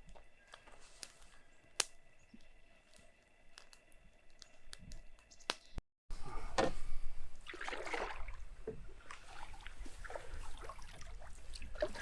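Quiet with a few scattered light clicks, then, after an abrupt cut about halfway through, louder water sloshing and splashing in irregular swells.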